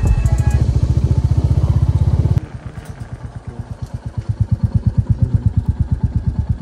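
Single-cylinder motorcycle engine thumping steadily under way. About two and a half seconds in the sound cuts to a quieter stretch where the even thuds, about ten a second, slowly grow louder.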